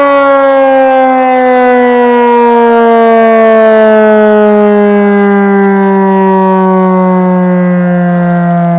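Federal Signal Model 5 electromechanical siren winding down after its test. Its loud tone slides slowly and steadily lower in pitch as the rotor coasts down.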